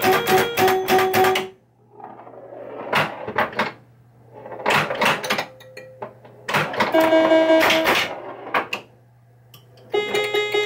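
Bally Fireball Home Edition pinball machine in play: bursts of clattering flipper and bumper hits, some carrying short, steady, stepped pitched tones from the machine's sound, with quieter gaps between them over a steady low hum.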